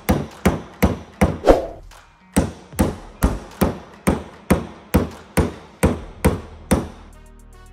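Hammer tapping on a PDR knockdown tool held against the steel quarter panel, knocking down high spots while the panel is held under pulling pressure. The strikes come evenly, about two to three a second, with a short break about two seconds in, and stop near the end.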